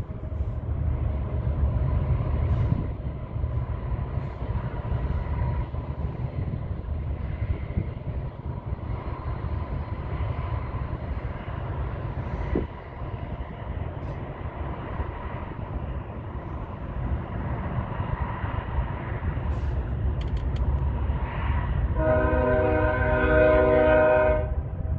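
Distant diesel freight locomotives working with a steady low rumble, then a locomotive air horn sounds one chord for about two and a half seconds near the end.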